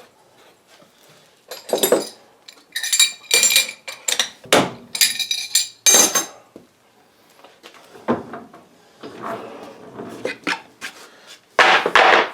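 Heavy steel and cast-iron parts clanking and knocking together with short metallic rings as a six-jaw lathe chuck on its cast-iron L00 mounting plate is fitted onto the lathe. A cluster of sharp clanks falls about two to six seconds in, softer knocks follow, and there is one more loud clank near the end.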